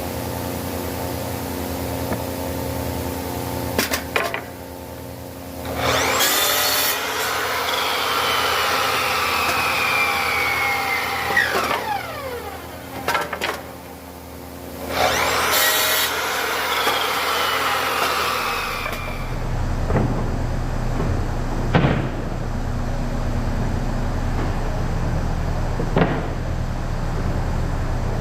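Power saw cutting wood in two passes, each about four to five seconds long, its pitch falling as the blade takes the cut, over a steady machine hum. The later part is steady machine hum with a few sharp knocks.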